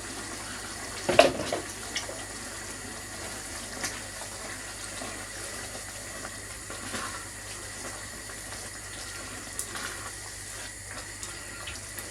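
Diced chicken breast sizzling as it goes into hot sauce in a cast iron Dutch oven: a steady hiss, with a clatter about a second in.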